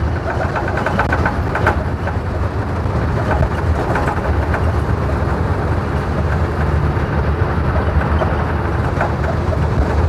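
Bus running on the road, heard from inside the passenger cabin: a steady low engine and road rumble with a few light rattles.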